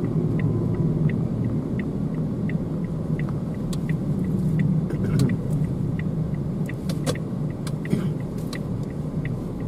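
Car interior noise while driving, a steady low rumble of engine and tyres. Over it the turn-signal relay ticks evenly about twice a second as the car turns off into a side street. A few sharper clicks come near the middle.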